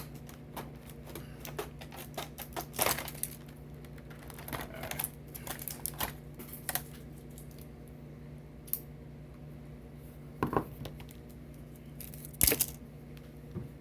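Stiff plastic packaging being cut open with tin snips: irregular clicks and crinkles, with a few sharper, louder snaps.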